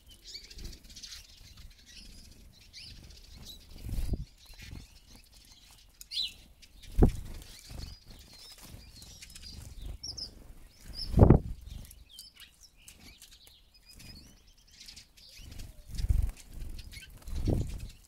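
Eurasian siskins' wings fluttering as they fly in and out at close range, a handful of short whirring flaps with the loudest a little past the middle, and thin high twittering calls between them.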